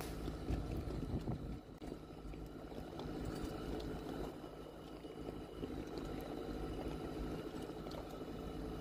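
A steady motor hum running evenly, with a few faint knocks.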